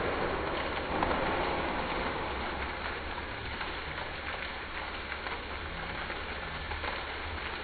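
Steady hiss of steam escaping from a stationary Beyer Garratt steam locomotive, 6029, a little louder in the first couple of seconds.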